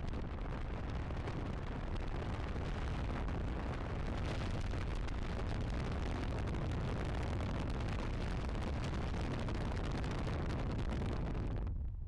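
Airflow rushing and buffeting over the microphone in the open cockpit of a Cimbora two-seat glider in gliding flight. The noise is steady and heavy in the lows, with no engine, and drops away sharply near the end.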